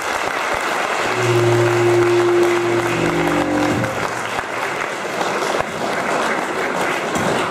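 Lecture-hall audience applauding steadily to welcome the speaker. A steady low hum sounds under the clapping for a few seconds near the start.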